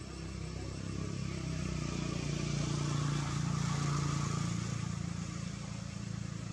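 Low engine drone of a passing motor vehicle, swelling to its loudest in the middle and then easing off slightly.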